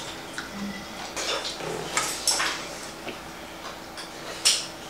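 Metal spoon and chopsticks clinking against a stainless steel bowl as noodle soup is stirred: a few scattered clinks, the loudest near the end.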